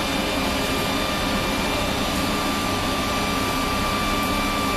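Steady running noise heard inside a vehicle's cabin: a low hum with a constant high whine over it.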